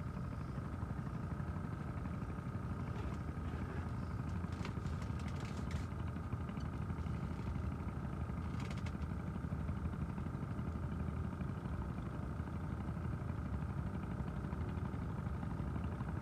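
A small engine running steadily at idle, a constant low rumble with a steady whine above it and a few light clicks in the middle.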